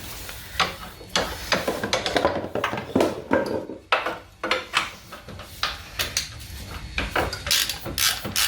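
Metal clinks and knocks of a hand tool working loose a motorcycle's transmission drain plug: many sharp clicks in quick succession.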